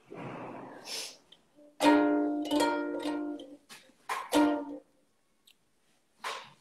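Ukulele strummed in the opening chords of a song: a chord about two seconds in that rings for over a second, a shorter strum around four seconds, then a pause and one more strum just before the end. A short breathy rustle comes first.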